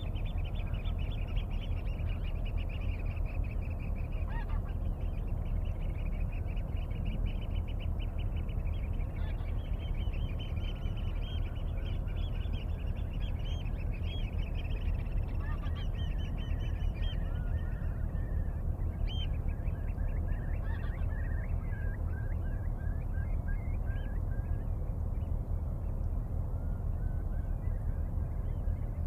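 River water flowing steadily, with birds calling over it in fast runs of rapidly repeated high notes, then a slower string of lower notes in the second half.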